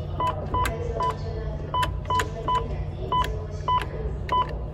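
Keypad of an NTT Docomo Widestar II simple payphone being pressed key by key: each press gives a click and a short single-pitched beep, nine in all, coming in three groups of about three. A steady low hum runs underneath.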